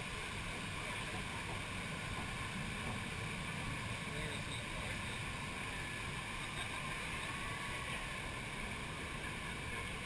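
Steady wash of flowing water and wind noise as a round river-rapids raft floats along the channel, even throughout with no splashes or knocks.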